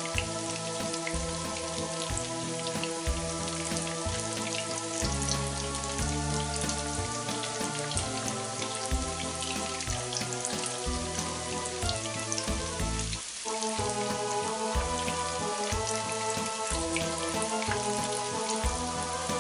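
Breaded cauliflower florets frying in plenty of hot oil, a steady dense crackle and sizzle. Background music plays underneath and breaks off briefly about two-thirds of the way through.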